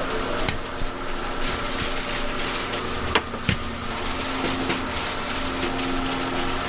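A steady machine hum with a few held tones, broken by a few sharp clicks or knocks, two of them a little past halfway.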